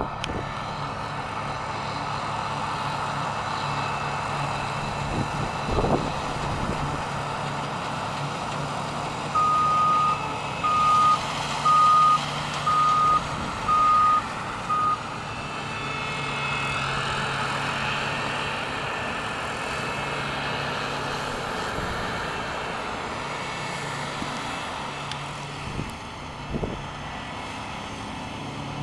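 Harvest machinery engine running steadily while a reversing alarm beeps six times, about a second apart, roughly a third of the way in. There is a short knock or two.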